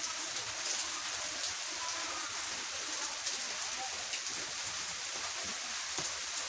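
A steady hiss with a few faint scattered ticks and clicks of a T-handle socket wrench tightening crankcase bolts on a 100cc Hero motorcycle engine.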